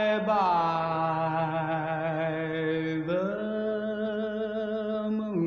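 A male ballad singer holds two long final notes with vibrato, the second starting about three seconds in, over sustained orchestral backing.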